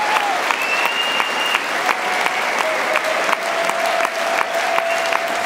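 Audience applauding steadily, a dense patter of many hands clapping, with a few long steady tones ringing over it.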